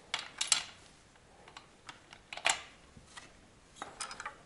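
Metal spark-plug socket wrench clicking and clattering as it is fitted over the spark plug of a Husqvarna 555 chainsaw and turned: a quick cluster of clicks at the start, one louder clack about halfway, and a few more clicks near the end.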